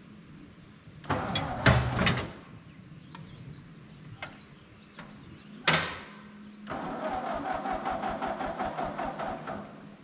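Old tractor running with a rotary mower cutting grass and brush: a steady engine hum, with loud bursts of noise about a second in and again near six seconds, then a rapid, pulsing clatter for about three seconds.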